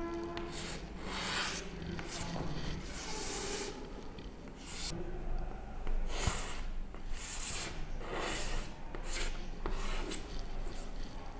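Chalk drawing on a chalkboard: a run of separate scratchy strokes, some short, some about a second long, as lines are drawn.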